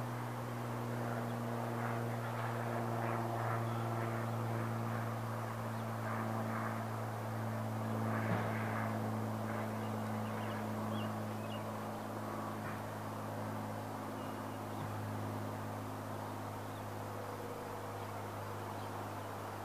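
A steady low machine hum under a faint outdoor background noise.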